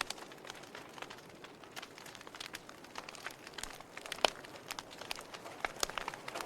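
Wood fire crackling: irregular sharp pops and snaps over a soft steady hiss of burning, with one louder pop a little past four seconds in.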